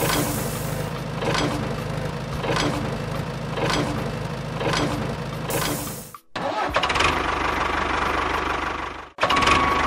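Small motors of a homemade model excavator running with a steady, engine-like hum and a sharp knock about once a second. The sound drops out briefly twice.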